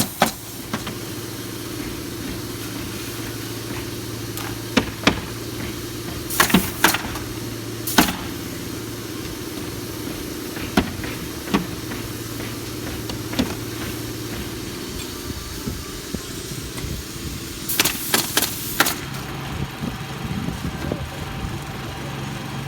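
Roofing crew at work: sharp, single and quickly repeated shots of pneumatic roofing nail guns driving shingle nails, over a steady motor hum. A tight run of shots comes near the end.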